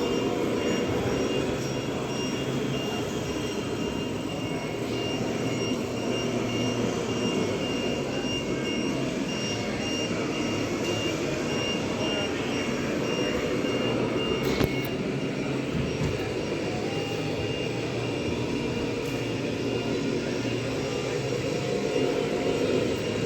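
Steady mechanical whirring hum with a faint high tone pulsing in short, evenly spaced beeps through most of it, and one sharp click about midway.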